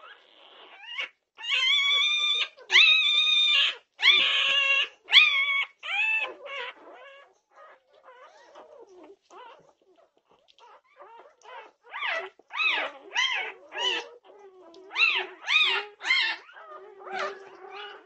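Young Norwegian Buhund puppies squealing and crying: several long, loud squeals in the first few seconds, a quieter spell of faint whimpers, then a quick string of short rising-and-falling cries near the end.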